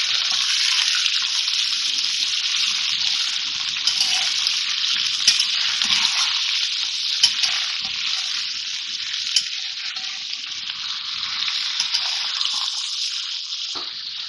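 Raw chicken pieces sizzling in hot oil in a karahi, a steady loud hiss that eases a little near the end. A metal spatula turning the pieces clinks against the pan now and then.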